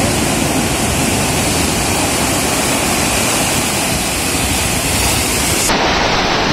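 Sea surf breaking and washing in, a steady loud roar of rushing water. Near the end the sound shifts as the highest hiss drops away.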